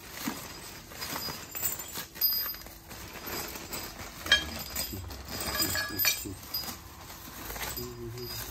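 Metal bolts clinking against each other and the concrete floor as they are handled and laid out, with a plastic hardware bag rustling. There are several sharp clinks, the loudest about four seconds in.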